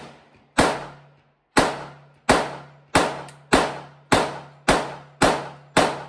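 Rapid gunfire from another shooter's gun on the range: about ten shots at a steady cadence of a little under two a second, each ringing off under the range's shelter roof.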